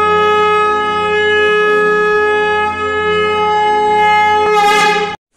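A conch shell (shankha) blown in one long steady note that wavers and drops slightly in pitch near the end, then stops abruptly.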